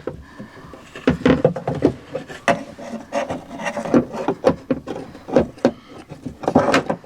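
A replacement door check strap being worked into a Tesla Model 3's driver's door: irregular scraping, rubbing and light knocks as the part is pushed and wiggled against the door's edges.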